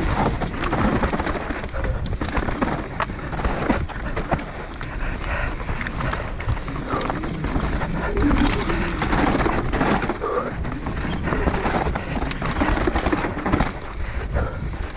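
Enduro mountain bike descending a dirt forest singletrack at race pace: constant clatter and rattle of the bike over roots and rocks, tyres on dirt, and wind rumbling on the microphone, with the rider's hard breathing.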